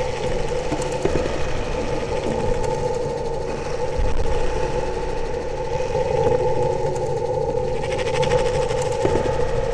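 Electronic noise-drone music from a Eurorack modular synthesizer and iPad found sound: two steady held tones over a rumbling, crackling noise bed, with a deeper swell about four seconds in.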